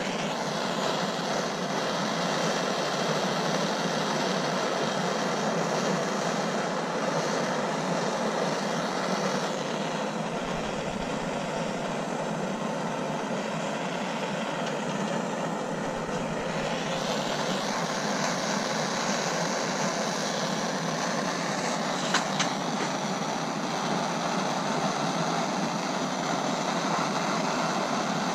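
Handheld gas torch flame burning with a steady hiss, heating a wire grill leg so it can be bent without snapping. The hiss thins for a few seconds midway.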